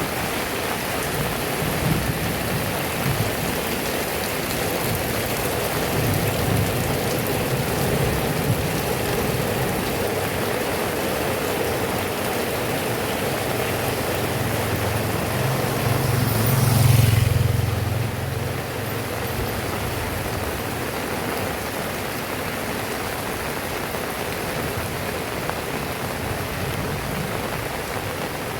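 Heavy rain falling and pattering steadily on surfaces. A low rumble swells a little past the middle, peaks, and fades within a few seconds.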